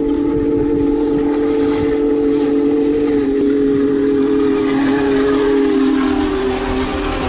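Steam locomotive's chime whistle blown in one long blast, several tones sounding together as a chord, dropping slightly in pitch as the engine comes level with the listener and passes. Steam hiss and the rumble of the locomotive grow under it near the end.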